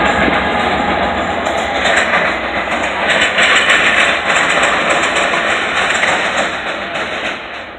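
BNSF intermodal freight train passing, its diesel locomotives and double-stack container cars rumbling with a clickety-clack of wheels over the rails. The noise fades as the train moves away, dropping off near the end.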